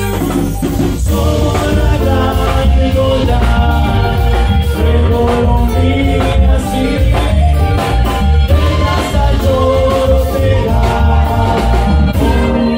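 A band playing upbeat Latin American folk-dance music with a steady, pulsing bass beat and percussion.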